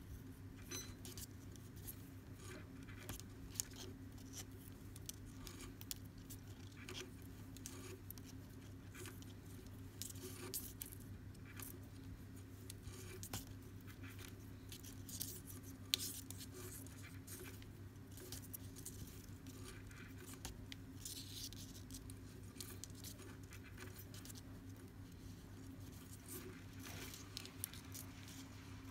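Hands tying clove hitches in macrame cord: light, irregular rustles and small clicks of cord and fingers, with a sharper click about 16 seconds in, over a steady low hum.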